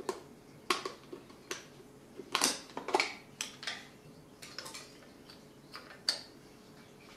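Clicks and clatter of a Canon Zoom DS-8 Super 8 cine camera's side-door latch being released, the door coming off and the film reel being handled: a string of sharp clicks and knocks, the loudest cluster about two to three seconds in.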